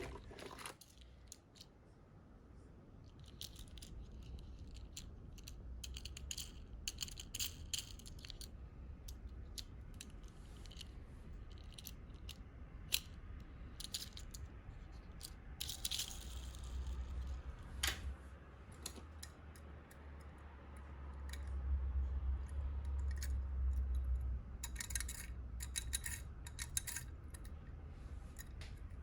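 Small die-cast toy cars clicking and clinking as they are picked up and moved about in a box, in scattered light knocks and short rattles, with a low handling rumble about three-quarters of the way through.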